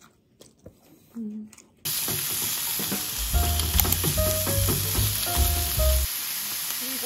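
Food frying in a pan, its sizzle starting suddenly about two seconds in and holding steady. Stirring knocks and clatter against the pan run through the middle.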